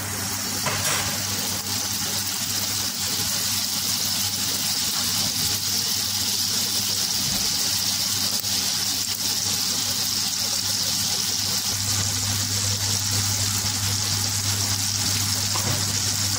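A pat of butter sizzling as it melts and foams in hot cooking oil in a stainless steel pot: a steady hiss.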